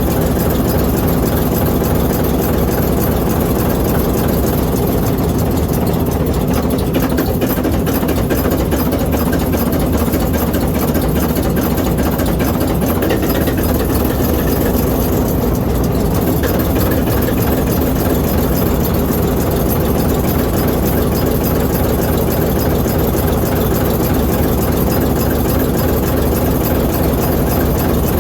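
ALCO 539T turbocharged inline-six diesel prime mover of an ALCO S4 locomotive, running steadily at an even speed.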